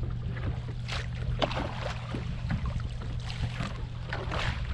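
Water lapping and splashing against a bass boat's hull in short irregular slaps, over a steady low hum.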